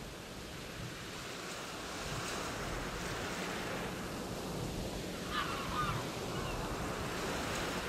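Ocean surf washing in at the shoreline, a steady rush of waves, with a brief high chirp about five and a half seconds in.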